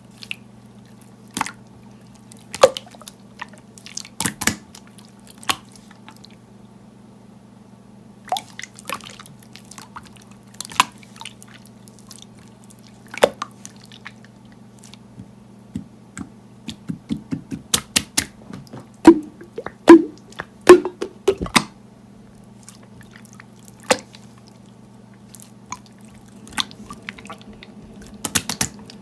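Clear slime being pressed and squished by hand, giving irregular sharp clicks and wet pops as trapped air bubbles burst, with a run of louder pops past the middle. A steady low hum lies underneath.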